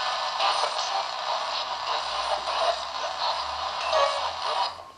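Ghost box, an AM radio modified to scan continuously across the stations, playing through a small portable speaker: a steady stream of static broken by brief snatches of passing stations. It cuts out abruptly near the end.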